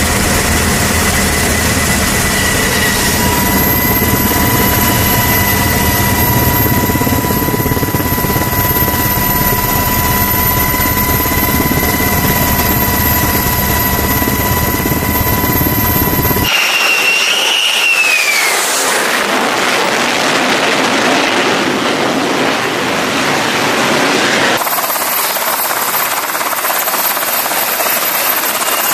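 Aircraft carrier flight-deck noise: aircraft turbine engines running, a steady rumble with high steady whines. Just past halfway it changes abruptly to a whine falling in pitch and a dense rush of jet noise, then changes again near the end.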